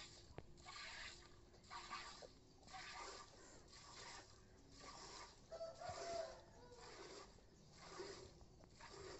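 Milk squirting by hand from a cow's teats into a steel pot: a steady rhythm of faint, short hissing spurts, somewhat less than two a second.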